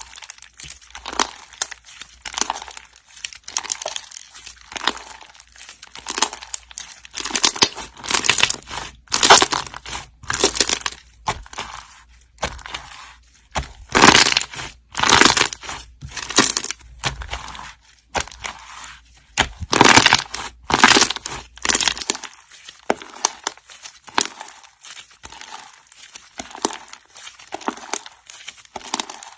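Crunchy slime being squeezed and pressed by hand: an irregular run of crackling, crunching bursts, some of them loud.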